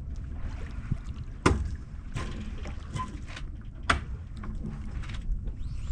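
Wind rumbling on the microphone aboard a sailboat, with a few sharp knocks and clicks from gear on deck; the two loudest come about a second and a half in and about four seconds in.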